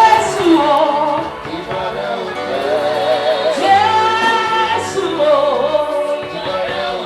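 Live Yoruba gospel praise song: a woman's voice sings long notes with a wide vibrato over a band with a held bass line.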